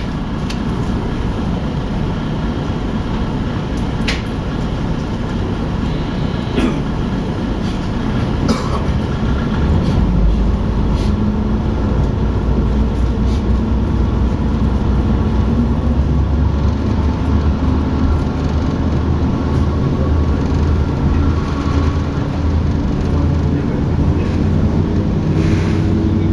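KiHa 52 diesel railcar pulling away from a station, heard from inside the passenger cabin. Its diesel engines run with a steady low note that grows louder about ten seconds in as they work harder to accelerate. A few sharp clicks come in the first nine seconds.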